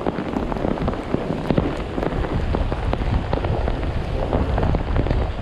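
Heavy rain falling steadily, with many separate drops striking close to the microphone.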